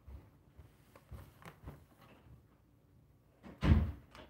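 Small clicks and knocks of a plastic Turtle Beach gaming headset being handled, then one loud thump about three and a half seconds in.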